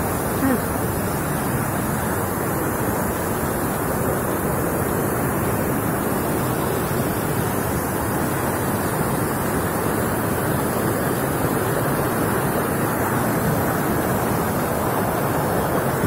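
White-water river rapids rushing steadily over boulders, a continuous even roar of water.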